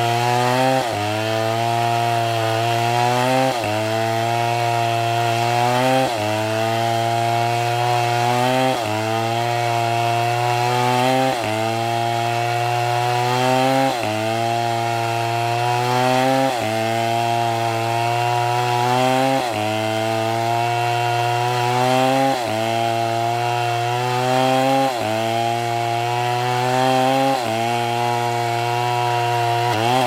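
Large two-stroke Stihl MS720 chainsaw ripping lengthwise through an oak log at full throttle, its engine pitch sagging under the load and picking back up about every two and a half seconds as the bar is worked along the cut.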